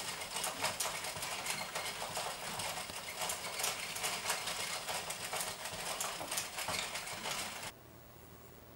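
Hand-cranked plastic circular knitting machine running, its needles making a fast, dense rattle of clicks that stops abruptly near the end.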